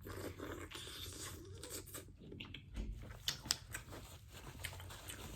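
Close-miked eating sounds: chewing and handling seafood boil with the fingers, with many small wet clicks and crackles.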